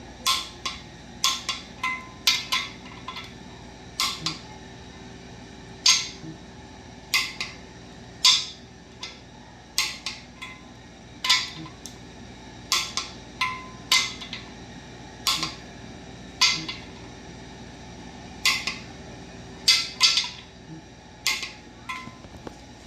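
A long irregular series of short, sharp metallic clicks, roughly one or two a second.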